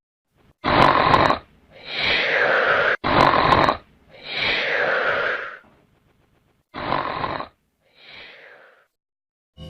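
Comic snoring sound effect: three snores on the in-breath, each followed by a long out-breath that slides down in pitch, the last snore and breath fainter.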